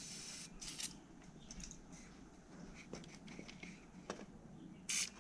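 Aerosol spray can fired in short hissing bursts, a brief one under a second in and a louder one near the end, with light scattered clicks of tools between.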